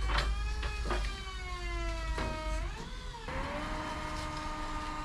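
Motor of a Dino 160XTB II lift's hydraulic unit running. Its pitch sinks steadily for about two and a half seconds, wavers, then settles into a steady hum, with a few clicks early on.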